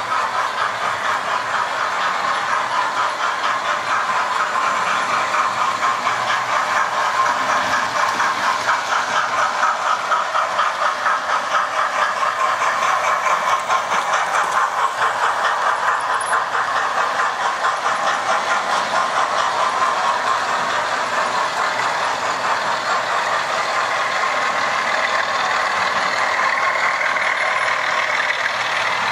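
Several model trains running together on a model railway layout: the steady whirr of their electric motors and gears, with a rapid rhythmic clicking of wheels over the track.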